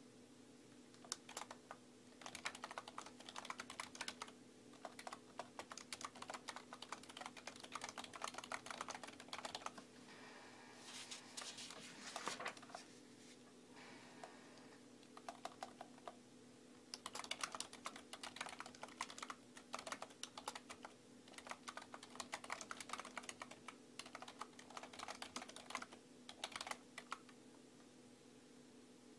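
Typing on a computer keyboard: quick runs of key clicks in bursts, with a pause midway and a stop near the end, over a faint steady low hum.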